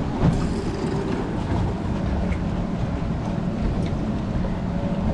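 Mercury outboard motors idling steadily, a low even hum, with wind rumble on the microphone.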